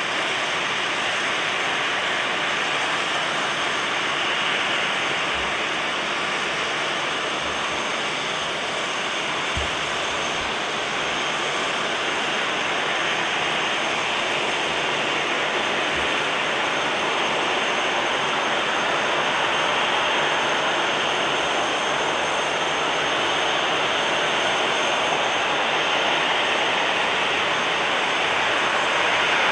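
Jet engines of a Transavia Boeing 737-800, CFM56-7B turbofans, running at low power as the airliner taxis along the runway. The sound is a steady jet hiss with a faint high whine, growing slowly louder near the end as the aircraft comes closer.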